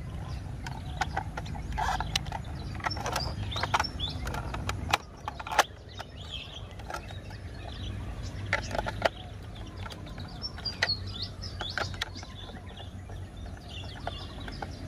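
Clicks and taps of a plastic toy ambulance being handled and turned over, with a screwdriver brought to its battery-cover screw near the end. Birds chirp faintly in the background.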